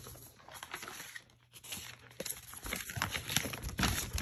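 Handling noise: rustling and crinkling with many irregular small clicks and taps, busier and louder in the second half.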